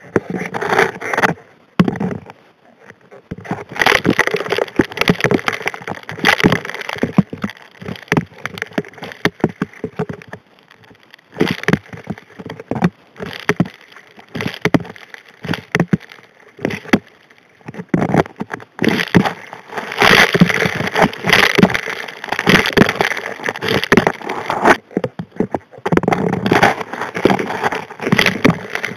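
Gravel and small rocks being sucked into a hand dredge's steel nozzle, heard underwater: a dense clatter of rock striking steel. It comes in spells with brief lulls every several seconds.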